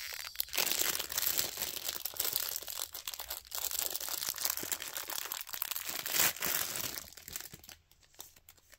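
Clear plastic bag crinkling and rustling in the hands as a watch is unwrapped from it. It dies away about seven and a half seconds in, leaving a few faint clicks.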